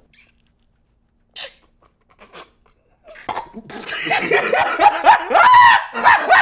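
About three seconds of near quiet broken by two faint short puffs of breath, then a man bursts into loud laughter.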